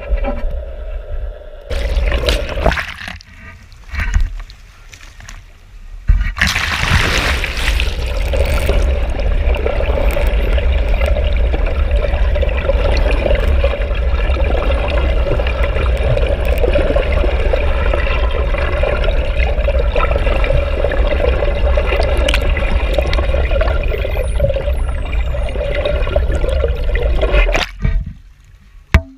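Water rushing past an underwater camera housing alongside a moving boat's hull, with a steady drone from the boat's engine and propeller under the rush; it cuts off abruptly near the end as the camera comes out of the water. The first few seconds hold only scattered splashes and bursts of water noise.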